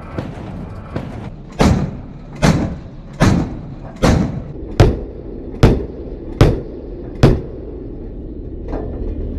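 The corvette's 100 mm A-190 deck gun firing eight shots in quick succession, one about every 0.8 s, each with a short rumbling tail. A fainter shot follows near the end.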